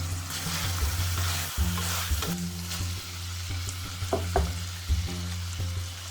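Stir-fry sizzling in hot oil in a pan as it is stirred, the sizzle strongest in the first few seconds, over soft background music.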